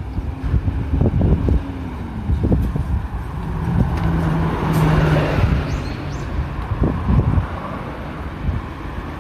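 A city bus passing close by on the road. Its engine hum and tyre noise swell to a peak about halfway through, then fade.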